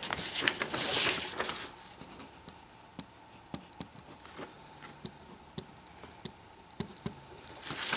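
Handwriting on a paper pattern sheet: scratchy strokes for about the first second and a half, then a few faint taps and clicks.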